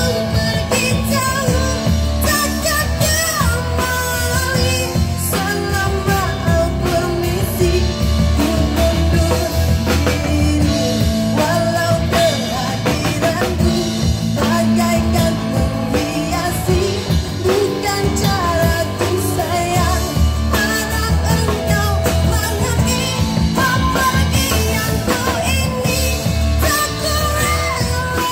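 Live band playing a song through PA speakers: a woman singing a melody into a microphone over drum kit, electric guitar and acoustic guitar, continuous and steady in level.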